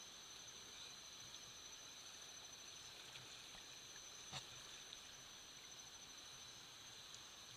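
Near silence: faint, steady high-pitched insect drone, with one faint click about four seconds in.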